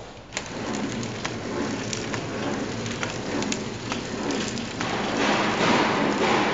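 KT-250X pillow-type horizontal flow wrapping machine running: a dense rattling noise with scattered sharp ticks, which starts about half a second in and gets louder about five seconds in.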